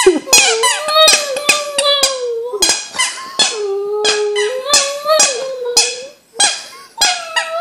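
A small dog whining in long, wavering tones while it chews a plush squeaky toy, the chewing giving sharp clicks and squeaks about three times a second.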